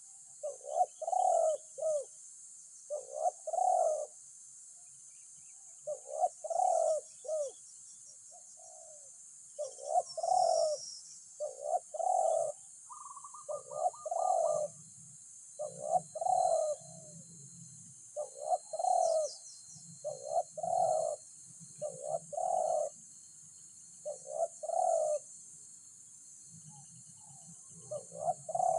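Spotted dove (tekukur) cooing, with repeated phrases of two or three low notes about every two seconds, over a steady high hiss.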